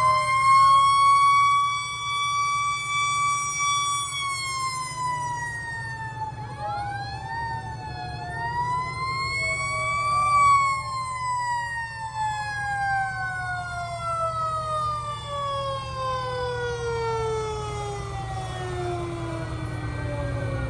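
Fire truck sirens wailing as fire apparatus pass. One rises, holds, then falls; a second rises about eight seconds in and winds down slowly over the next ten seconds. Truck engines run low underneath.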